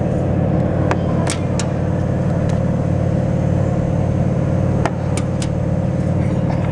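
A steady low mechanical drone, like a running engine or machine, with a few sharp clicks about a second in and again around five seconds in.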